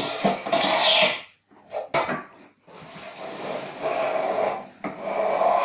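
Metal bench plane cutting across the edges of a pine carcass, knocking down the high corners of stepped joints. Several separate strokes, each a short shaving sound, with brief pauses between them.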